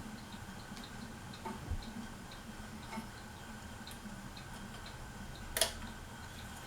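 Harbor Breeze Palm Breeze ceiling fan running in reverse: a steady motor hum with a light tick repeating about three to four times a second. One short, sharp noise about five and a half seconds in.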